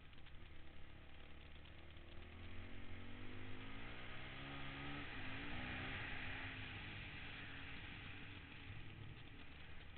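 Honda dirt bike engine pulling under throttle, its pitch climbing for a few seconds, then dropping sharply about five seconds in as it shifts up, and pulling again. Wind rushes over the microphone throughout.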